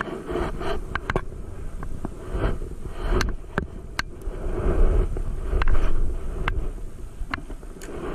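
Scattered sharp knocks and clicks over a low rumble aboard a small wooden outrigger boat (bangka) as the boatman at the bow poles it through shallow water.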